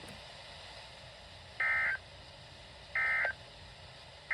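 Emergency Alert System end-of-message data bursts from a NOAA Weather Radio: short, buzzy two-tone digital chirps, two of them a little over a second apart, with a third starting right at the end, over faint radio hiss. They signal that the blizzard warning broadcast is over.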